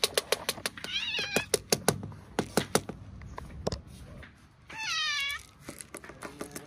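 A cat meowing twice, a short high mew about a second in and a longer call around five seconds in, over repeated sharp clicks and rattles of dry cat food kibble in a plastic bottle.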